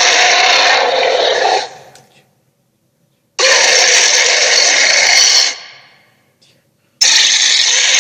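Loud, harsh creature roar sound effects, made for a tiger-gorilla monster. The first roar fades out about a second and a half in, the second lasts about two seconds before fading, and the third starts near the end, with dead silence between them.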